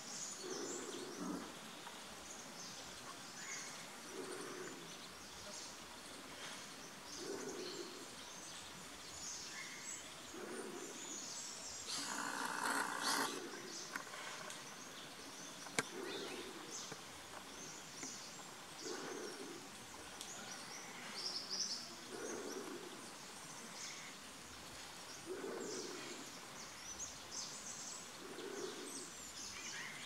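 Forest birds calling: many short high chirps throughout, under a low call repeated about every three seconds. About twelve seconds in comes a louder, noisier call lasting over a second.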